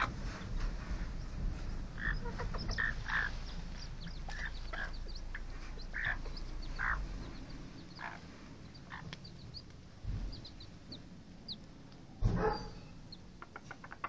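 Bantam broody hen clucking in short, repeated calls while her small chicks peep in thin, high cheeps. About twelve seconds in there is one louder, sudden rustling bump.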